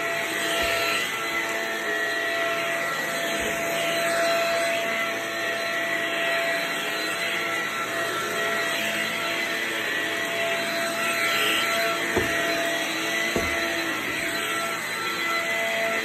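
Cordless stick vacuum with a powered carpet floorhead running steadily as it is pushed over carpet, a constant motor whine with a high tone on top. A few light knocks come along the way, two of them about twelve and thirteen seconds in.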